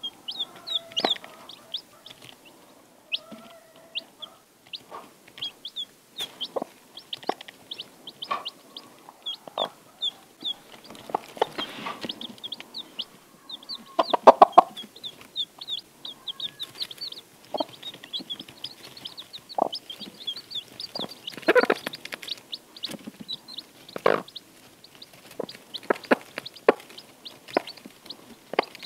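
Newly hatched Icelandic chicks peeping: a steady stream of short, high cheeps. The broody mother hen clucks low now and then, loudest about 14 seconds in and again around 21–22 seconds. Small ticks come from pecking and scratching in wood shavings.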